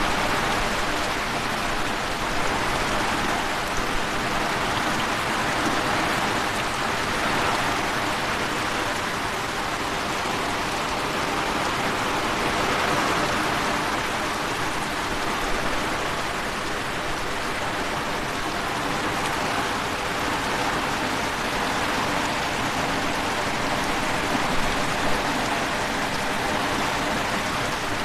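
Heavy rain pouring steadily, a dense, even hiss with no letup.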